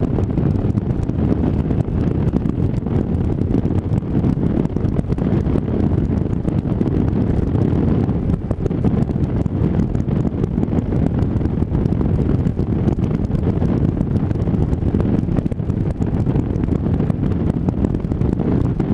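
Wind buffeting a foam-wrapped helmet microphone on a moving motorcycle: a steady, loud, low rumble with the bike's running and road noise underneath.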